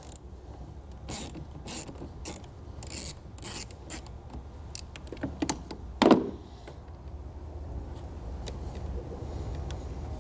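Hand ratchet with a 10 mm socket loosening the nut on a car battery's terminal stud: a run of quick ratcheting strokes over the first few seconds, then a single louder knock about six seconds in.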